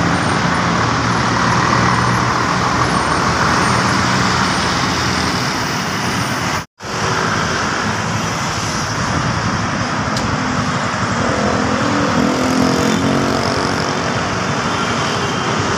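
Steady city road traffic, with a tour coach's engine running as it passes close by. After a brief cut, traffic passes and another coach approaches, its engine note coming up near the end.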